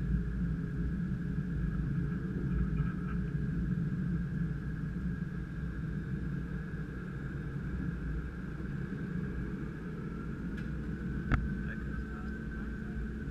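Cockpit noise of a Gulfstream G550 taxiing: a steady low rumble from its Rolls-Royce BR710 jet engines and the rolling airframe, with a steady high whine over it. A single sharp click sounds about eleven seconds in.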